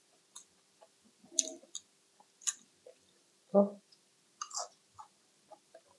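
Close-miked chewing of salad: scattered crisp crunches and small wet mouth clicks, with a brief hummed 'mm' about three and a half seconds in.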